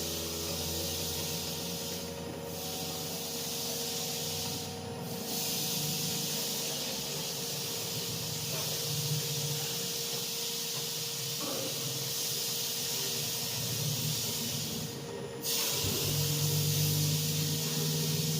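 CNC router with a water-cooled spindle milling steel: a steady hiss over a faint constant whine. The hiss dips briefly three times.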